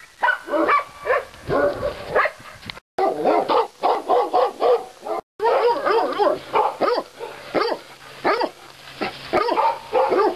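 Shelter dogs in kennel runs barking rapidly and almost without pause, barks overlapping. The sound cuts out briefly twice.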